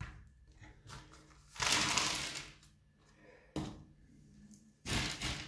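Coarse orchid potting mix of bark chips and small pebbles rattling and crunching as it is tipped out of a small pot onto a table and spread by hand: a short burst about a second and a half in, a click a little after three seconds, and another burst near the end.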